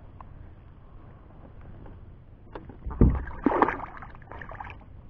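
Hooked channel catfish thrashing at the water's surface beside a kayak: a sudden heavy splash about three seconds in, then a second or so of smaller splashes.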